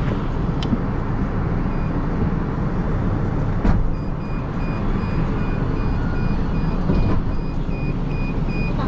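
Ford Transit minibus driving, with engine and road rumble heard from inside the cabin and a single knock about four seconds in. Through the second half, a high electronic beep repeats evenly, about two to three times a second.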